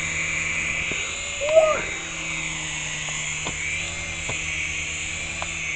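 Syma S107 mini RC coaxial helicopter hovering: its small electric motors whine and the rotors hum steadily at high throttle on a battery that is going dead. A brief chirp about a second and a half in is the loudest moment.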